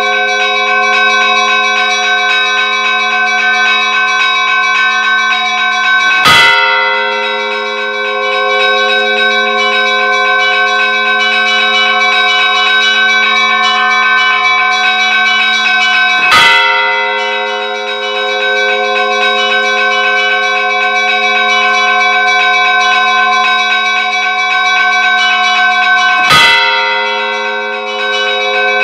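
Church bells pealing continuously, many bells ringing together in a dense, steady chime. A sharp strike stands out three times, about ten seconds apart.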